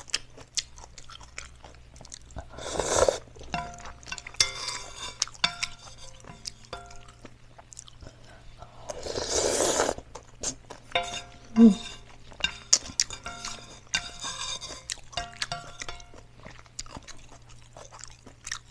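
Eating instant noodles: two long slurps, about three and nine seconds in, with chewing and small clinks of chopsticks and a spoon against a metal pan. Soft background music plays underneath.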